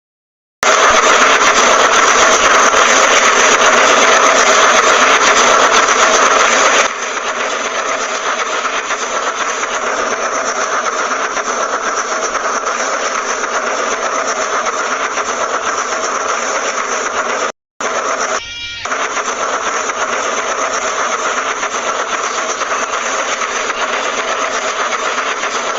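Train sound effect: steady, loud running rumble with a few held tones. About seven seconds in it cuts abruptly to a quieter, thinner recording, and near the middle there is a brief drop-out followed by a short pitched tone.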